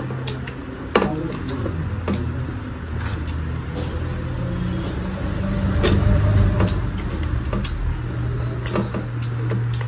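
People eating rice and curry by hand from steel plates: scattered short clicks of chewing and of fingers working the food, over a steady low rumble that swells about six seconds in.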